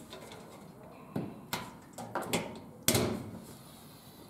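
A rolling whiteboard being handled: several sharp knocks and clacks, the loudest about three seconds in.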